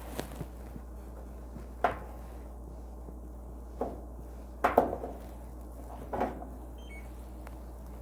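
A few separate knocks and clatters of parts being handled during work on an appliance, with a close double knock near the middle as the loudest, over a steady low hum.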